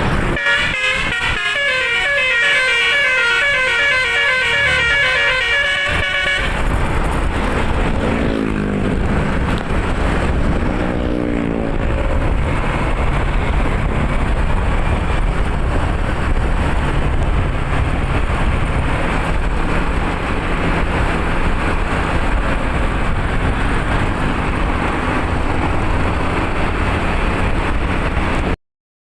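Bus telolet horn, a multi-tone air horn module, playing a fast warbling melody for about six seconds and then cutting off abruptly. After that comes the steady noise of a running bus and its road noise, with a brief low wavering tone around eight to twelve seconds in and a short dropout near the end.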